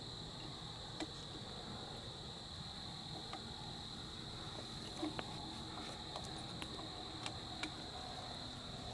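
Crickets trilling steadily in one continuous high-pitched chorus, with a handful of faint, sharp clicks scattered through it.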